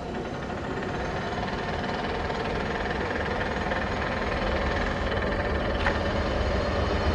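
Czech Class 162 electric locomotive drawing a passenger train away from a station and approaching: a steady hum with several held whining tones, growing louder throughout.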